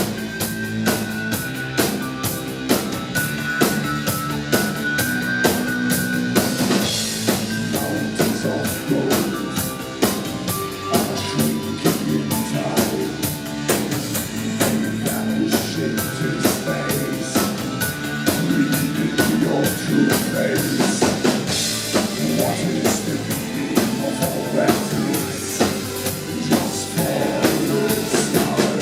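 Live darkwave band music: a steady, driving drum beat from two drummers under sustained synthesizer lines, played loud through a concert PA.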